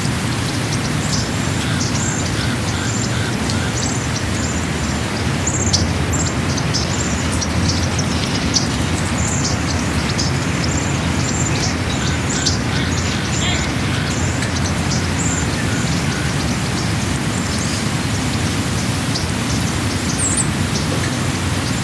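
Small birds chirping repeatedly in short high notes over a steady rushing noise.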